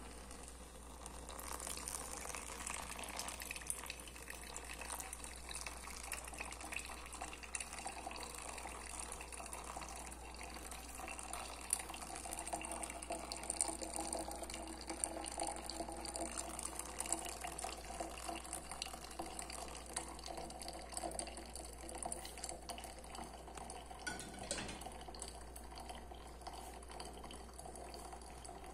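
Water pouring steadily into a paper coffee filter.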